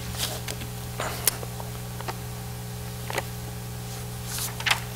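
Book pages rustling and being turned by hand, with scattered soft clicks and a brief sweep near the end, over a steady low electrical hum.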